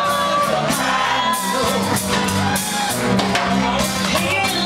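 Live band playing a reggae song: a woman sings the lead into a microphone over acoustic guitar, electric guitar and a drum kit keeping a steady beat.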